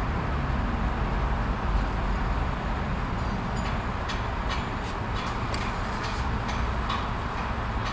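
Steady low rumble of idling vehicle engines, joined about halfway through by a light regular ticking, roughly three ticks a second.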